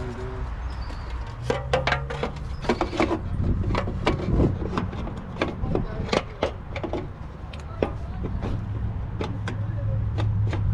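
Case 530 Construction King tractor engine running steadily at idle, with a string of sharp, irregular knocks and clanks of metal parts being handled over it.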